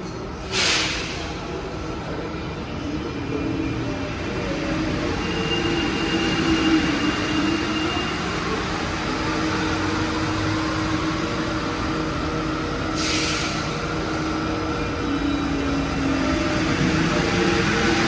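Metro trains, one of them an Alstom NS-16, running through a station: electric motors whining and wheels running on the rails. Two short hisses come through, about a second in and about thirteen seconds in. Near the end a whine rises in pitch as a train pulls away.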